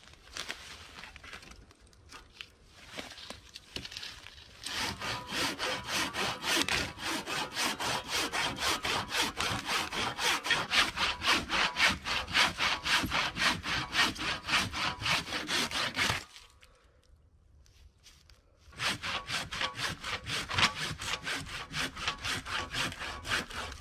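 Hand saw cutting through a fallen pine log with quick, even back-and-forth strokes, about three a second. The sawing breaks off for a couple of seconds past the middle, then starts again.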